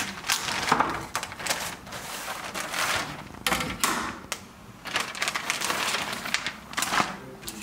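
Clear plastic wrapping crinkling and rustling in irregular bursts as it is pulled off a printed circuit board by hand.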